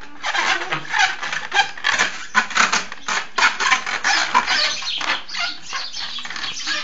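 Long air-filled modelling balloons being swung and knocked together, rubber rubbing and striking rubber in a quick, irregular series of short sounds.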